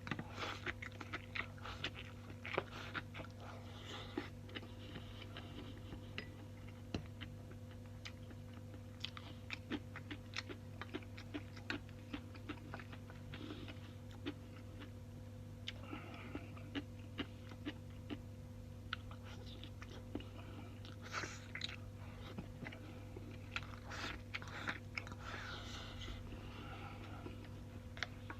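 A man eating rice with stewed tofu and pickled cucumber close to the microphone: irregular chewing, crunching and wet mouth clicks over a steady low hum.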